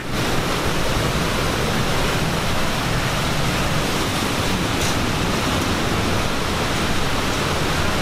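Waterfall's white water rushing in a loud, steady, unbroken noise, heard from right above the falls.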